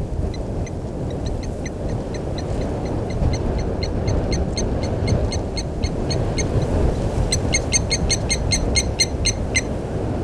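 A bird calling in a long series of short, high, repeated notes, about three or four a second, that quicken into a faster, louder run near the end, over a steady low rumble.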